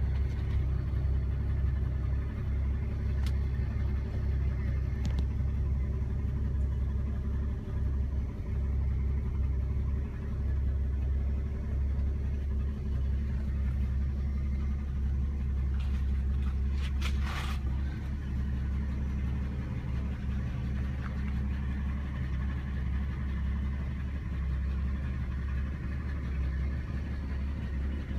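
1964½ Ford Mustang engine idling, a steady low rumble heard inside the car's cabin. A brief noise cuts across it about seventeen seconds in.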